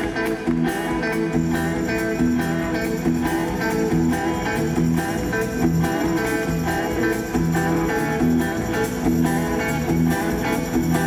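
Live band playing an instrumental passage, guitar to the fore over bass and drums, with no singing.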